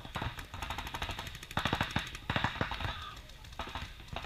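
Paintball markers firing rapid strings of shots, several bursts of quick, even pops with short gaps between them.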